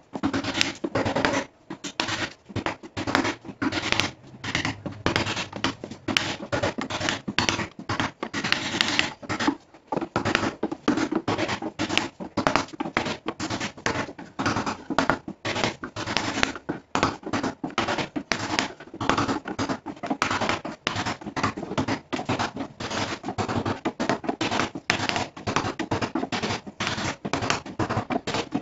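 A wooden stick scraping and knocking against the inside of a plywood subwoofer box: fast, irregular scratching strokes, several a second, with no let-up.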